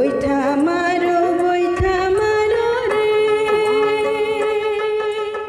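Background music with a voice holding one long, steady sung note over instrumental backing.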